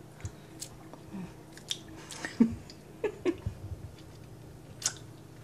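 A person licking and eating melted dark chocolate off a metal spoon: soft, scattered mouth and smacking sounds, with a few small clicks of the spoon against the saucepan.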